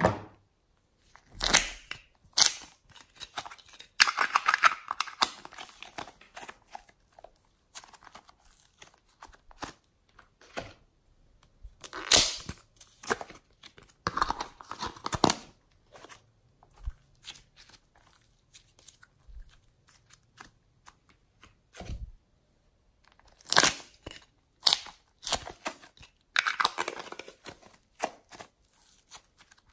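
Hands handling small clear plastic cups and lids and pulling apart foam clay: sharp plastic clicks and taps, with several stretches of crinkly tearing noise lasting a second or two.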